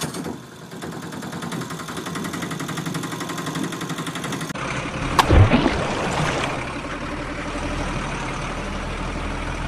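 Truck engine running steadily with a fast even pulse, then a loud splash about five seconds in as the toy dump truck plunges off the rock ledge into the water, followed by water churning and a low steady hum.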